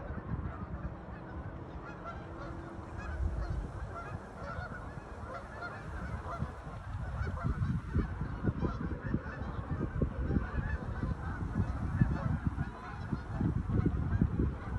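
Birds calling over and over, many short calls overlapping, over a steady low rumble that grows busier in the second half.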